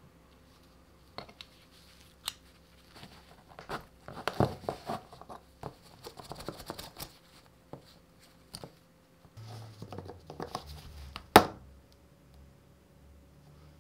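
Small metal parts of a bicycle caliper brake being handled and taken apart by gloved hands: scattered clicks, scrapes and rattles of nuts, bolts and tools, busiest around the middle. Near the end comes one sharp metallic click, the loudest sound.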